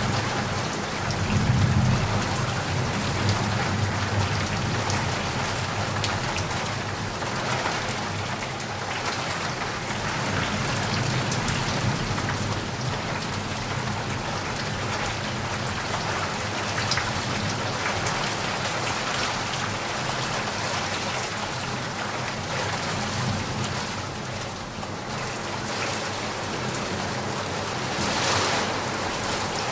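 Steady heavy rain hissing and pattering, with a low rumble of thunder that swells about a second in and fades away over the next ten seconds or so.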